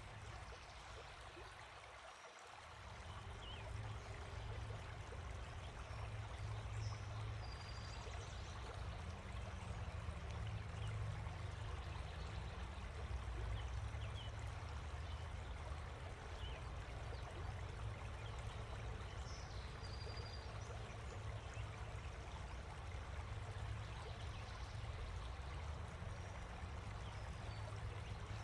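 Steady rushing ambient noise with a deep rumble underneath, which drops away briefly about two seconds in, and a few faint short high chirps.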